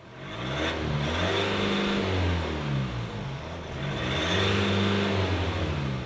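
Ford Ranger Wildtrak's 2-litre turbocharged four-cylinder diesel engine revved twice, each time rising, holding and dropping back.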